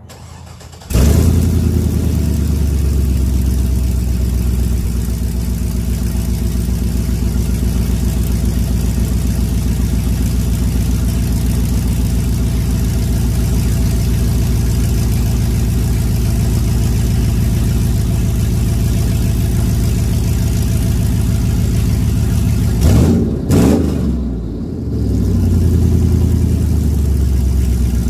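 LQ4 6.0-litre V8 on open headers, cold-started: it catches about a second in and idles loud and steady, settling slightly after the first few seconds. Near the end it gets a quick, mild rev up and back down to idle.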